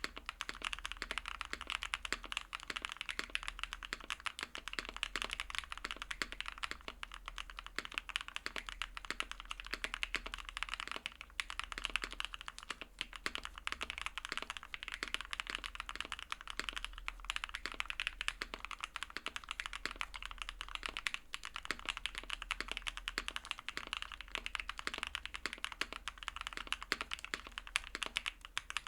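Custom mechanical keyboard fitted with PH Studio Aniy R2 linear switches being typed on steadily and quickly: a continuous run of keystroke clacks with no pauses.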